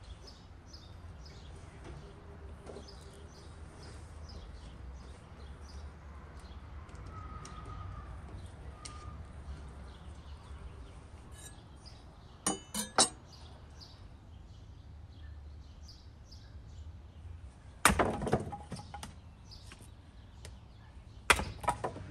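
Cooking utensils knocking and clinking: a quick group of three ringing clinks about halfway through, a louder knock with a brief ringing tail later, and another cluster of knocks near the end, over a steady low outdoor background.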